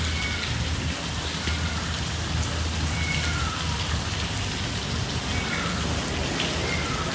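Steady rush of falling and splashing water, like heavy rain, as water pours down at a house fire, with a low steady hum underneath.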